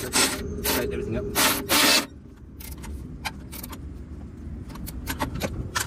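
Hand tools working on a nut on the truck's battery bracket: several loud scraping, ratcheting bursts in the first two seconds, then lighter metal clicks and taps.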